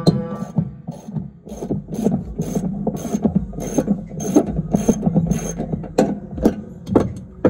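Hand ratchet wrench clicking in repeated strokes, about two a second, backing off the 17 mm nuts that hold a rear axle tube to its hub assembly.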